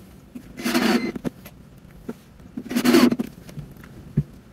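Cordless drill-driver running in two short bursts, about a second in and about three seconds in, driving screws to fix a boat's freshwater pump down onto its wooden base.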